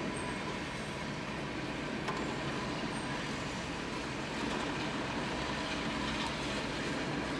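Freight train of covered hopper cars rolling past a grade crossing: a steady noise of wheels on the rails, heard from inside a car.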